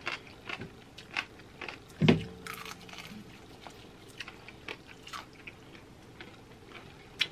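Close-miked chewing and biting of KFC fried chicken wings: irregular short crunches and mouth clicks, with one louder knock about two seconds in.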